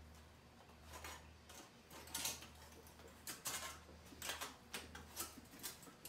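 Sheet-metal sunflower petals clinking and scraping as they are bent and readjusted by hand: irregular light metallic clicks, sparse at first and more frequent from about two seconds in, over a steady low hum.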